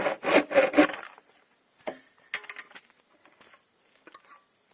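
Bamboo tube being hand-sawed: a quick run of about four rasping strokes in the first second, then a few light knocks. Crickets chirp steadily throughout.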